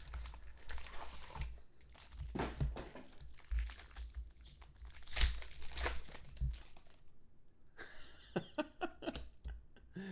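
Foil trading-card pack wrapper crinkling and tearing as it is opened by hand, followed near the end by short clicks and snaps as the cards inside are handled.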